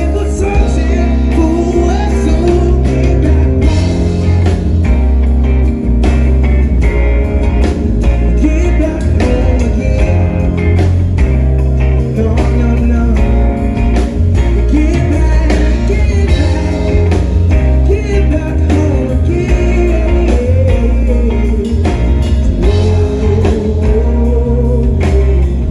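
Live band playing a song: acoustic guitar, a drum kit and keyboards over a heavy bass, with a male singer's wavering melody line.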